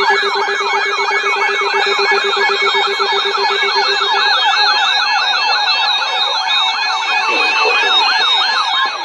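Broadcast emergency alert tone: a siren-like signal of fast, overlapping rising pitch sweeps, about four a second, layered with steady and stepped beeping tones. The lowest steady tone drops out about four seconds in.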